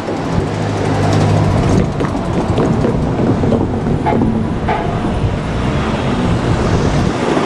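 A vehicle passing close by: a loud, steady rumble with a low hum early on and a few sharp clacks between about two and five seconds in.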